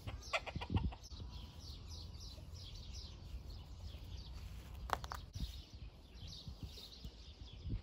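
Birds chirping in the background, a steady run of short, quick chirps, with a few brief scrapes and knocks of loose soil being pushed and patted by hand, about half a second in and again about five seconds in.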